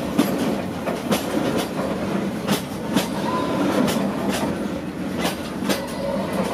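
Passenger train running along the track, heard from inside the carriage: a steady rumble and rattle of wheels on rails, with irregular sharp knocks and clanks every half-second or so.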